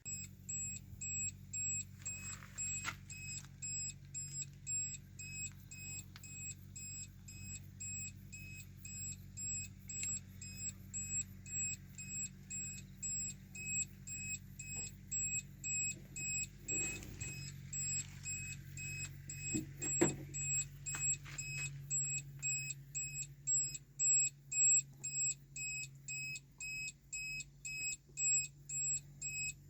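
An electronic warning beeper sounding a high, even beep about one and a half times a second, over the low steady hum of a small engine running.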